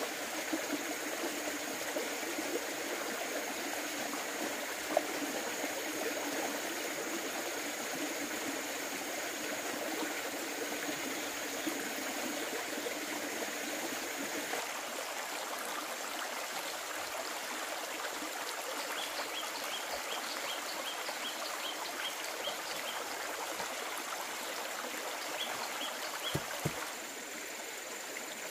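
Small shallow stream trickling over rocks, a steady rush of water. Partway through comes a rapid run of short high chirps, about two or three a second, and near the end the water sound drops away.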